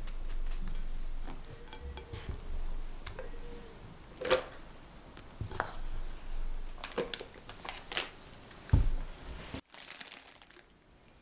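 A spatula scoops buttercream and knocks against a glass bowl, making a few sharp clicks, with the loudest knock near the end. A plastic piping bag crinkles as it is filled.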